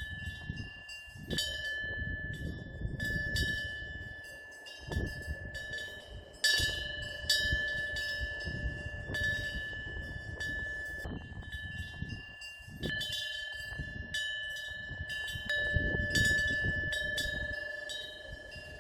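Korean temple eave bell (punggyeong), a small bronze wind bell, ringing as its clapper swings and strikes again and again at uneven intervals, each ring holding a clear high tone. A low rumble rises and falls underneath.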